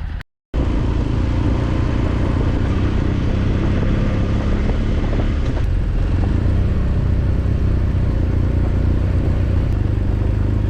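A split-second dropout, then an adventure motorcycle's engine running steadily on the move, a loud low drone over a rush of wind and road noise.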